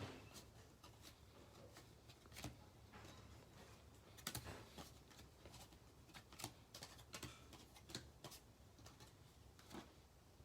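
Faint, irregular soft clicks and flicks of trading cards being handled and slid one by one off a stack, a few slightly louder ones about four seconds in.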